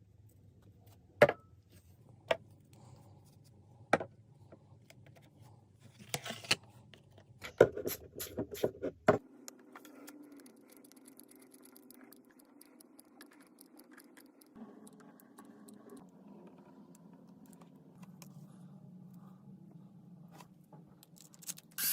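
Scattered sharp clicks and knocks of objects being handled, with a cluster of them around eight seconds in, over a faint steady hum.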